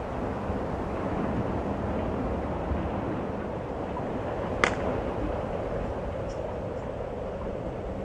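Wind buffeting the microphone, a steady low rumbling noise, with one sharp click about halfway through.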